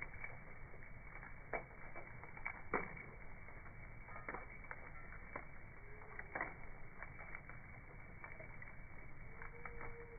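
Wood fire crackling, with irregular sharp pops and snaps over a steady low rush; the two loudest pops come about a second and a half and nearly three seconds in.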